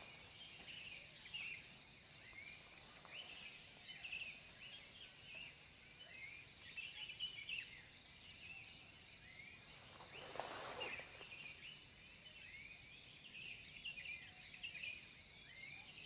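Faint dawn chorus of small birds: many short, quick chirps and calls overlapping throughout. A brief rushing noise swells and fades about ten seconds in.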